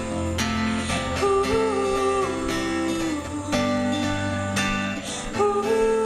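Background music led by acoustic guitar, with strummed chords and sustained melody notes.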